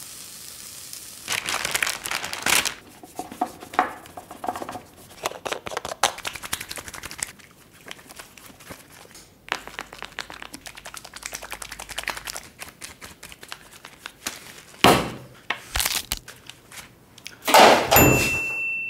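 A string of crinkling, crackling and clicking noises as hair and beauty products are handled, with a hiss fading out at the start. A loud burst near the end gives way to a steady ringing tone.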